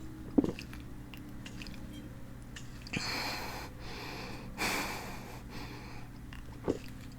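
A person breathing hard between gulps of soda: two heavy breaths, about three and four and a half seconds in, with a sharp click within the first half second.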